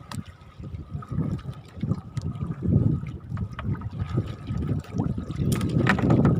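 Water sloshing and lapping irregularly against the hull of a small fishing boat at sea, with a faint steady high tone underneath.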